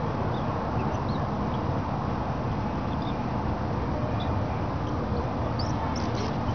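Scattered faint, brief bird chirps over a steady low background rumble, with a few sharper chirps and scrapes near the end.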